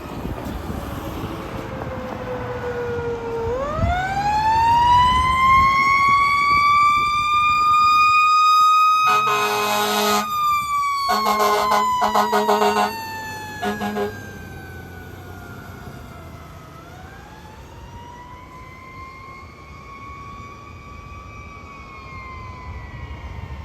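Fire engine siren winding up into a long wail and slowly falling, then winding up once more and falling away. Several short air-horn blasts sound over it in the middle, the loudest part, with the truck's engine rumbling at the start.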